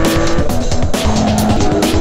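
Background music with a steady, fast beat, mixed with the sound of a Porsche sports car's engine at speed on a race circuit.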